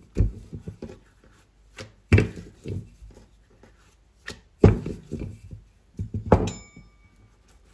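Rolling pin knocking and thudding on the rolling board as a small round of dough is rolled out, in irregular knocks about a second or two apart. The knock near the end rings briefly with a metallic tone.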